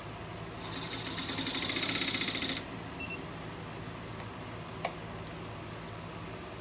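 Pencil tip chattering rapidly against the spinning natural-edge pear bowl as a line is marked around it, building for about two seconds and then stopping abruptly as the pencil is lifted. A single sharp click follows about two seconds later, over a low steady hum.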